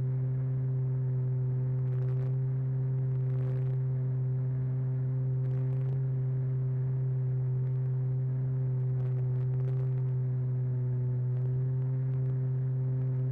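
Radio-controlled model airplane's motor and propeller running at steady cruise power, heard from on board the plane: an even, unchanging hum with overtones.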